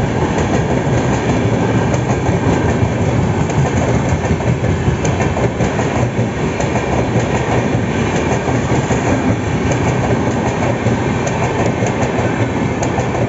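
Passenger express train of coaches passing close by, a steady loud rumble of wheels on rails with short irregular clicks from the wheels over the rail joints.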